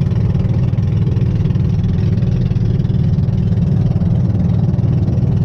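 Engine of a motorized bamboo outrigger boat running steadily, heard from on board: a loud, low, even drone.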